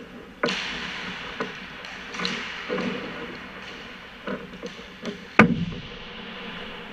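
Hockey sticks striking pucks on the ice in a series of sharp taps and cracks, with stretches of skate blades scraping. The loudest is one sharp crack about five and a half seconds in, ringing out in the rink.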